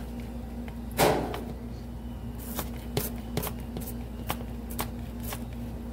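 Knife chopping onion on a cutting board: a knock about a second in, then a run of short, sharp taps, two to four a second, over a steady low hum.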